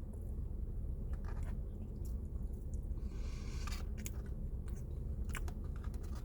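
Someone chewing a mouthful of pumpkin spice cinnamon roll: soft mouth clicks and smacks, with a short rustling hiss about three seconds in, over a steady low hum.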